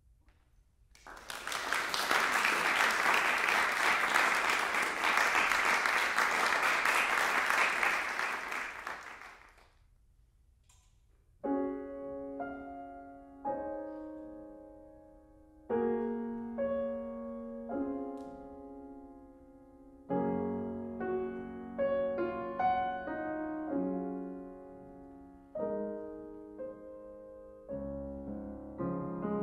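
Audience applauding for about eight seconds, then after a short pause a grand piano begins a slow introduction, striking chords one after another and letting each ring and fade.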